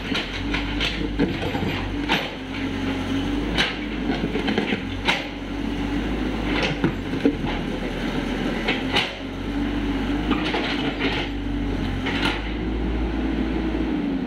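Mini excavator running, its engine and hydraulics humming with a tone that rises and falls as the arm works, while the steel bucket scrapes and clanks irregularly through wet clay soil. The engine tone drops near the end.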